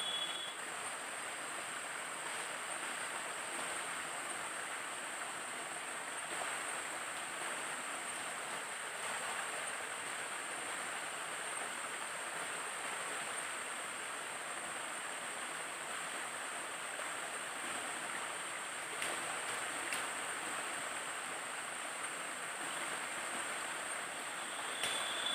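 Small cascade on a rainforest stream, water running steadily over a low rock ledge, with a steady high-pitched tone above it.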